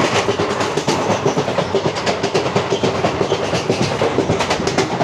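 Wheels of a moving passenger train clattering over the rails at speed: a fast, uneven run of clicks over a steady rumble and hum.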